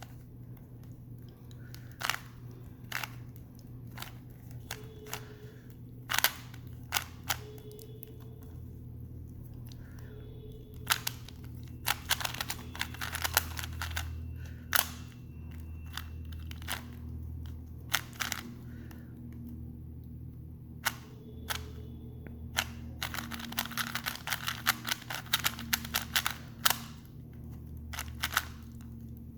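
Plastic Rubik's Cube being turned during a speed solve: sharp clicks of the layers snapping round, some single and some in quick runs of turns, with the densest runs about twelve seconds in and again near the end.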